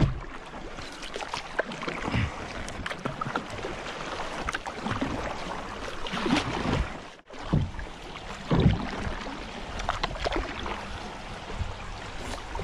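Kayak paddle strokes dipping and splashing in a slow river, with water running along the plastic hull. The strokes come irregularly, and the sound drops out briefly about seven seconds in.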